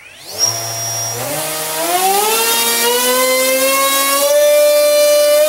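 Sunnysky 2216 KV1250 brushless outrunner motor on a balsa RC model plane spinning up its propeller on a bench run-up: a whine that starts about half a second in and climbs in pitch in steps as the throttle is pushed up, then holds steady near the end at high throttle.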